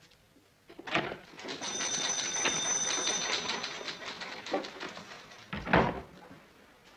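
An office door is opened about a second in, letting in a rapid mechanical clattering, like office typewriters, with a thin steady whine. The clattering fades, and the door shuts with a loud thump near the end.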